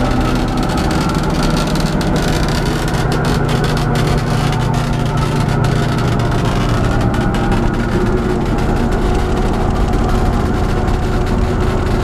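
Inside a converted school bus on the road: the old bus's engine and road noise make a steady, loud drone, with scattered light clicks and rattles.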